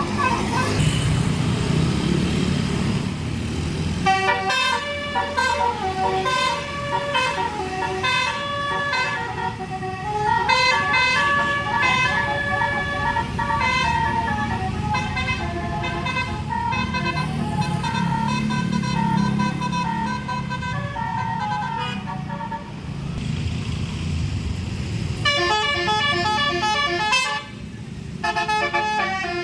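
Tour bus telolet basuri, an electric multi-trumpet horn, playing a long stepped melody that starts about four seconds in. After a short break it plays a second, choppier run of notes near the end. The bus's engine runs underneath.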